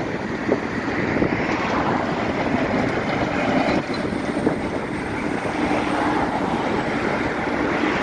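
Wind rumbling on the microphone over steady outdoor traffic noise.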